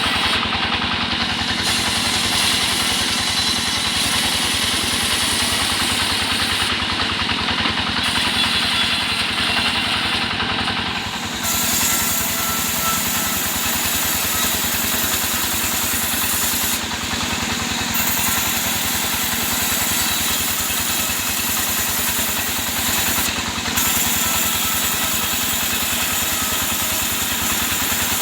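Engine-driven wood saw running steadily: a continuous engine drone with fast, even pulsing, with a small change in the higher sound about eleven seconds in.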